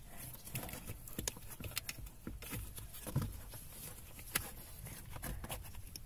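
Scattered light clicks, knocks and rustling of plastic and wiring as hands work the Lada Vesta's cabin heater blower fan out of its housing under the dashboard, with wires snagging on it. A couple of the knocks are a little louder, about midway.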